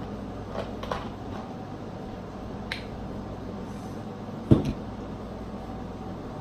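Light clicks and taps of food and dishes being handled at a table, with one heavier thump about four and a half seconds in as the loudest sound.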